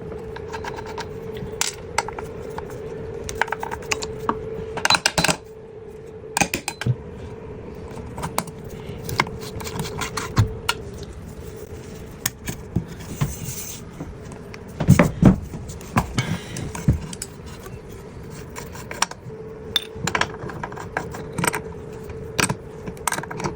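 Metal tools and tap parts clicking, clinking and scraping irregularly while an old tap head is worked on and a new tap head kit is fitted. A steady hum sounds under the first few seconds and again near the end.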